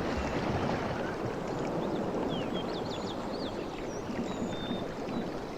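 Sea waves washing steadily, with small birds chirping and whistling over them from about two seconds in.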